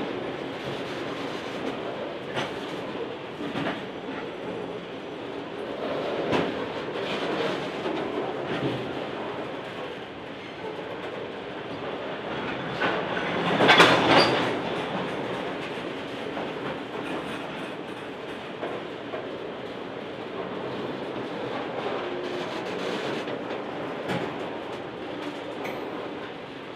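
Loaded grain hopper wagons rolling past, steel wheels clattering over the rail joints in a steady stream of knocks and rumble. About halfway the clatter swells briefly into its loudest stretch.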